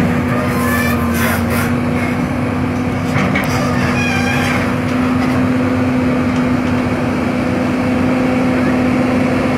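A hydraulic excavator's diesel engine running steadily, with a few short scrapes and clicks in the first half.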